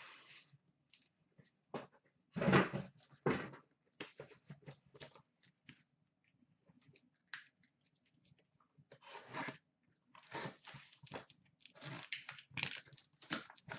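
Cardboard packaging of a trading-card case being opened and handled: irregular rustling, crunching and tearing bursts, loudest about two and a half seconds in and again in a cluster near the end.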